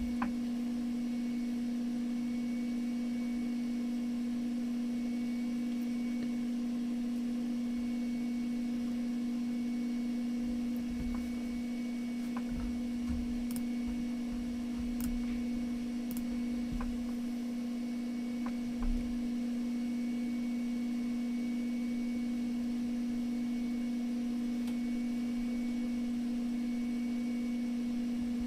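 A steady, even electrical hum at one low pitch, with a few faint clicks over it.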